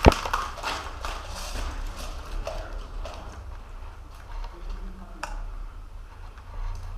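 Irregular footsteps and rustling of gear, with a sharp click just after the start and another about five seconds in.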